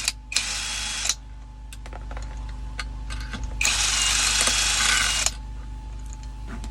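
A ratchet spanner clicking as it undoes the 10 mm lock nut on a handbrake cable adjuster. It comes in two runs of rapid clicking, one starting just after the start and one near four seconds, each lasting about a second, with single tool clicks in between.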